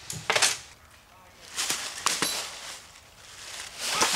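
Airsoft guns firing in short bursts of sharp snaps, with gaps of a second or more between the bursts: one near the start, two around two seconds in, and one near the end.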